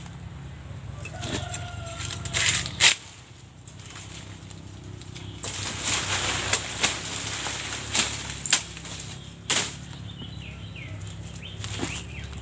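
Dry fallen salak palm fronds and leaf litter rustling and crackling as someone moves through them, with irregular sharp snaps, the loudest about three seconds in.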